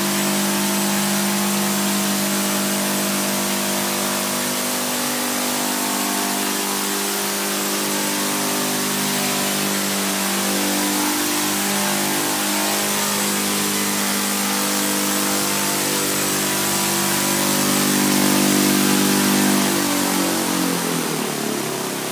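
Saito FG-20 single-cylinder four-stroke gasoline engine driving a 15×8 propeller, together with four electric rotors, as a hybrid multirotor hovers: a steady, loud drone whose pitch shifts a little. It swells about 18 seconds in, then the pitch falls as the craft is throttled down to land.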